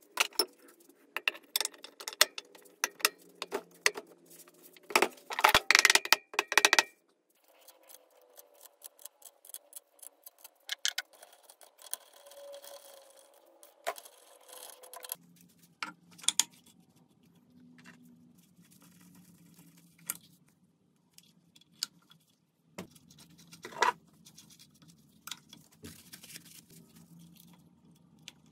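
Irregular light metallic clicks, clinks and knocks of tools and metal engine parts being handled, thickest in the first several seconds, over a low steady hum that shifts abruptly twice.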